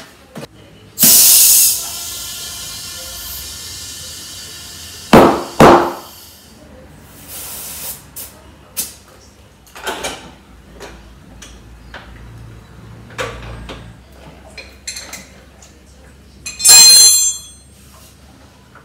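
Hand-tool work on a scooter's front end: a sudden loud sound about a second in that fades slowly with a ringing tone, two sharp metal knocks around five seconds in, scattered clicks and taps, and a short loud hiss with a high ringing tone near the end.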